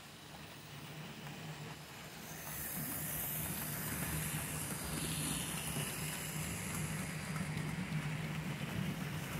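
Model steam locomotives running round the track: a steady motor hum with wheels running on the rails. About two to three seconds in it grows louder and a high hiss comes in, as a train draws near.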